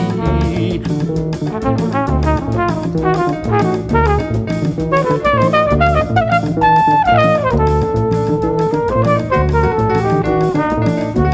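Instrumental jazz from a sextet: a quick melodic solo line of short notes over bass and drums. About two-thirds of the way through, a high note is held and then slides down to a lower held note before the quick line resumes.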